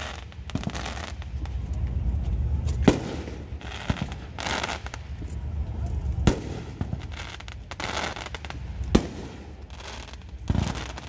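Firecrackers going off one at a time: about five or six sharp bangs spaced a second or two apart, the loudest about three seconds in, over a steady low rumble.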